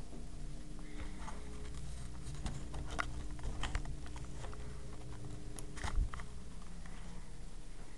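Handling noise from a camera being carried: scattered clicks, knocks and rustling, the loudest knock about six seconds in, over a low steady hum.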